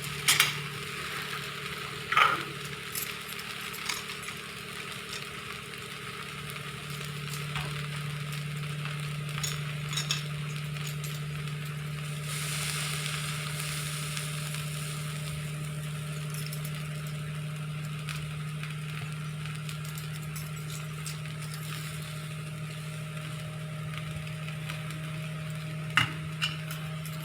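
Puffed-rice poha sizzling in a pan on the stove, with a few sharp clicks of a spoon against the pan near the start and near the end. A steady low hum runs underneath.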